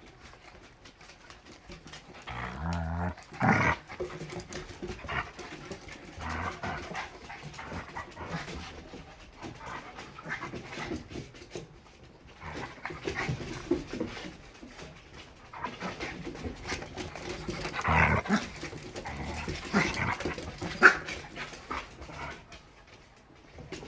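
Puppies playing, with irregular bouts of growling and panting and a sharp knock near the end.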